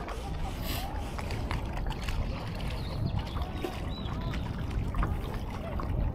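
Water lapping and trickling against a Laser dinghy's hull, with a low rumble of wind on the microphone.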